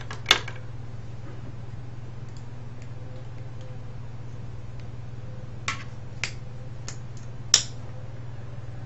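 Sharp clicks and clinks of small scrap parts being handled and dropped: one loud clink just after the start, then five more spread over the last few seconds, over a steady low hum.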